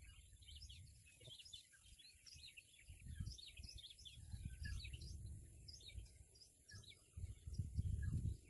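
Many small birds chirping and twittering without a break, a dense chatter of short high notes. Under them an uneven low rumble comes and goes, loudest near the end.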